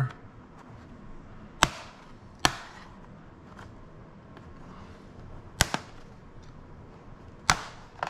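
Plastic retaining clips of an HP laptop's bottom cover snapping loose as a plastic pry tool is worked along the seam: four sharp snaps spread a second or more apart, with fainter ticks between.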